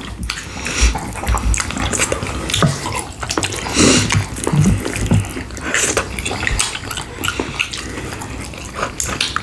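Close-miked wet chewing, smacking and slurping of saucy food, a dense run of short clicks and squelches.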